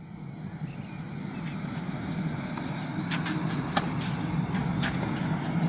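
Tennis ball strikes in a rally on a clay court: several sharp knocks of racket on ball in the second half, the loudest nearly four seconds in, over a steady low rumble.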